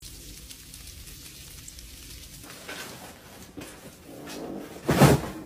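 Cardboard box and loose paper trash rustling and crinkling as they are handled, with a sudden, loud crash-like burst about five seconds in.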